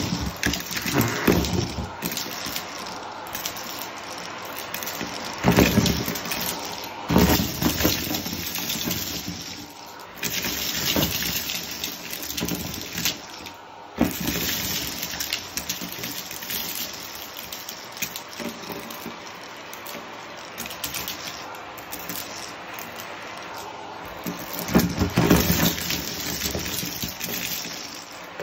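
Vacuum cleaner running, its metal wand sucking up can ring-pulls, sequins and other small hard debris from a rug, with a continuous rush of air. The debris rattles and crunches up the tube in several loud bursts.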